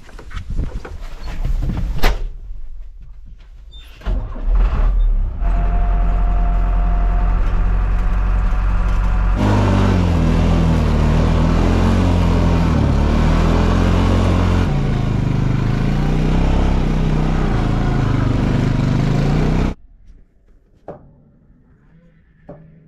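Metal tractor snow chains clink and knock as they are handled on the tyre. An engine then runs for about fourteen seconds, louder and with a rising and falling pitch from about ten seconds in as the ATV is ridden, and cuts off suddenly. What follows is quiet, with a couple of soft knocks.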